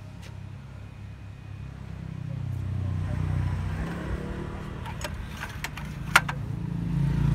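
An engine running with a low, steady hum that grows louder from about two seconds in, with a few sharp clicks or knocks around five to six seconds in.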